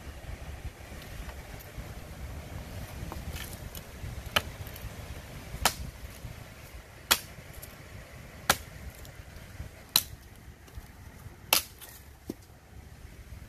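Heavy SK85-steel cleaver-style chopper (WorkTuffGear C.U.M.A. King Destructo) chopping into a green wooden branch. From about four seconds in come six sharp strikes, spaced about a second and a half apart.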